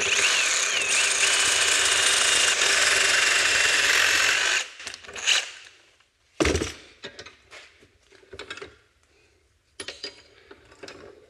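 Power saw with a Diablo carbide blade cutting through a thick steel exhaust flange, a loud steady rasp with a wavering high whine. It stops about four and a half seconds in, followed by scattered knocks and clatter of metal being handled.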